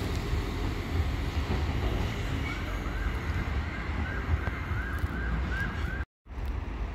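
Steady low rumble with wind noise on the microphone. From about two and a half seconds in, a faint distant siren yelps up and down about three times a second. The sound cuts out for a moment near the end.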